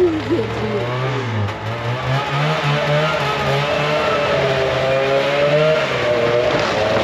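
A motor vehicle engine running and revving, its pitch stepping up and down.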